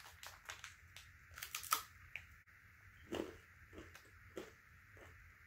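Clear plastic snack wrapper crinkling and tearing as it is worked open by hand: faint scattered crackles with a few louder rustles.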